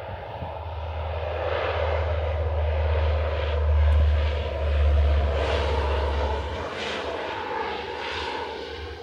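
Civilian C-130 Hercules with four turboprop engines, rolling along the runway under power: a deep, steady engine hum with rushing propeller noise that grows louder to a peak about halfway through, then eases a little.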